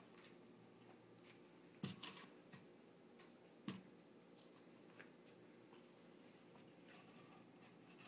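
Near silence broken by a few light taps and knocks: two sharper ones about two seconds in and just under four seconds in, and fainter ones around them.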